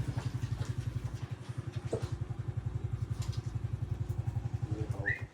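Small engine idling steadily with an even, rapid low pulse, cutting off suddenly near the end.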